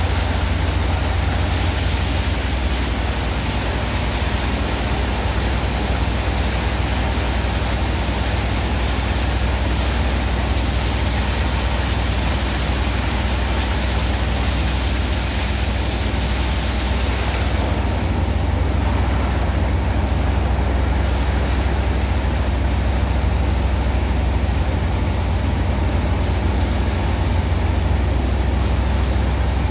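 High-pressure water jets from hoses hissing and splashing into wet sand, over a steady low drone of running machinery. The hiss softens slightly a little past halfway.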